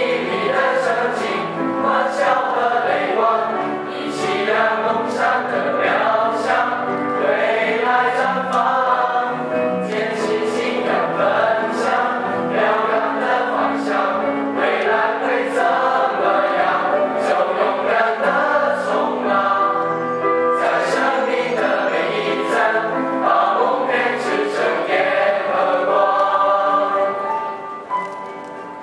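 A mixed choir of teenage boys and girls singing, accompanied by piano and acoustic guitar; the singing drops away briefly near the end.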